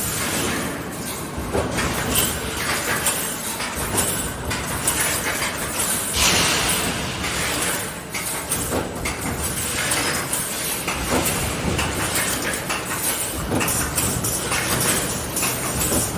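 Automatic 3D fence wire mesh welding machine at work: a steady mechanical clatter with repeated metallic clinks and knocks.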